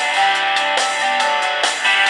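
A Samsung Galaxy tablet's stock ringtone playing: a guitar-like tune of strummed, plucked notes.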